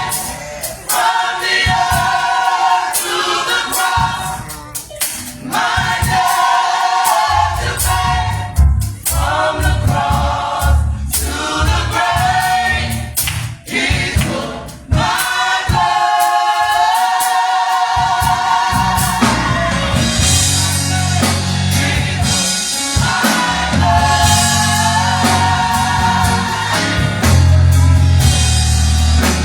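Gospel choir singing in harmony. A low bass accompaniment comes in about seven seconds in, and from the middle on the accompaniment fills out under the voices.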